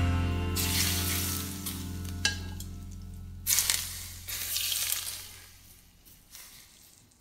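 Hot oil ladled over shredded scallion and chili on a steamed sea bass, sizzling in bursts: once about a second in, again around three and a half seconds, then dying away near the end.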